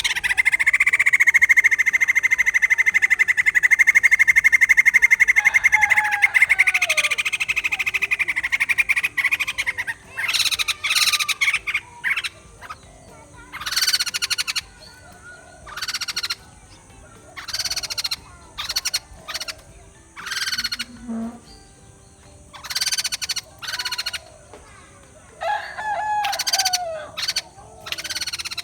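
White-crested laughingthrush chattering: a long, rapid rattle for about the first nine seconds, then a string of short, sharp calls with a couple of falling notes.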